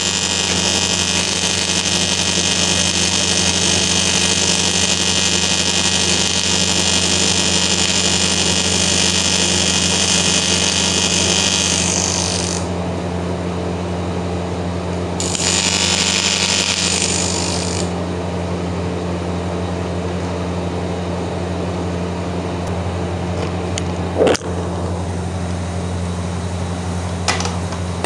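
Hobart Beta-Wave 320 TIG welder's AC arc buzzing steadily while welding cast aluminium, for about twelve seconds, then cutting out. It strikes again briefly for a couple of seconds and stops, leaving a steady low hum, with two sharp clicks near the end.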